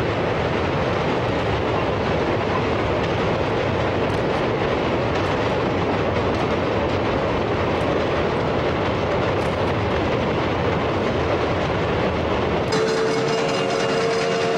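Long train of railroad flatcars rolling steadily across a steel trestle bridge, a continuous rumble and clatter of wheels on rail. Near the end this gives way suddenly to a single steady whistle from Chicago & North Western 4-6-0 steam locomotive 1385 as it approaches.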